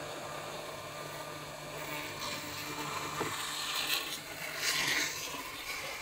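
Hot-air rework gun blowing steadily with a low hum for about the first two seconds. Then it stops, and irregular scraping and rubbing handling sounds follow, with a click near the middle.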